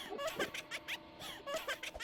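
A repeating run of quick squeaky chirps and scratchy strokes, coming round about once a second, over faint steady tones.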